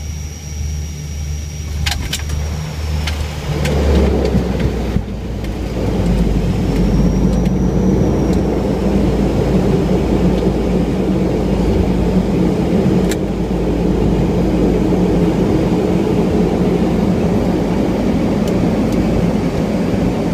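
Dash 8 Q300 turboprop engines and propellers heard from inside the cockpit during touchdown and landing rollout. A click about two seconds in, then the sound swells about four seconds in into a loud, steady rumble as the aircraft rolls down the runway.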